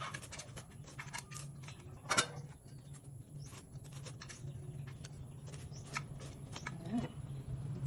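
Irregular small clicks and taps of kitchen prep work, with one sharper knock about two seconds in, over a steady low hum.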